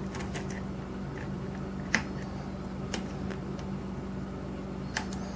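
A few scattered small clicks of a hook pick lifting pins in an ERA pin-tumbler lock cylinder held under tension, the loudest about two seconds in, over a steady low hum.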